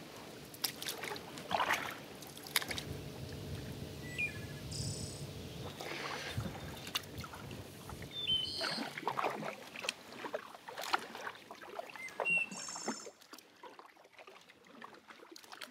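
Water lapping and splashing around a small paddle craft, with scattered small knocks and a few short high chirps.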